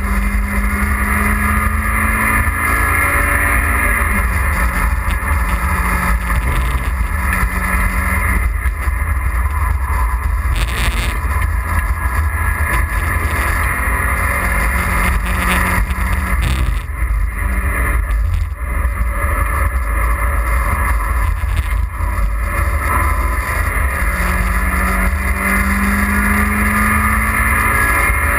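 Mazda MX-5's four-cylinder engine heard from inside the cabin under hard acceleration on a track lap, its pitch climbing through the revs and falling back at each gear change, with a few brief lifts off the throttle. Heavy wind and road rumble run underneath.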